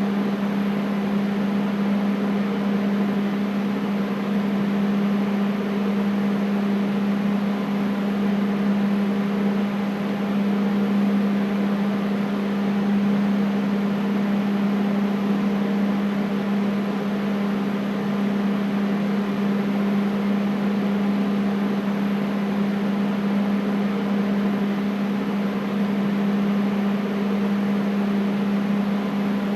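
Air conditioner running steadily: a constant low hum with an even rush of air over it.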